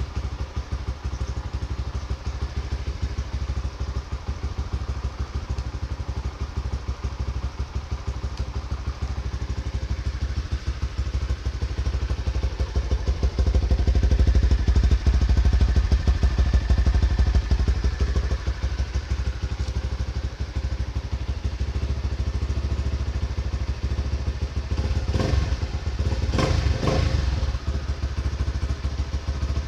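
Honda RS150 fuel-injected 150cc motorcycle engine idling steadily with an even pulsing beat, growing louder for a few seconds around the middle. A few sharp knocks sound in the last few seconds.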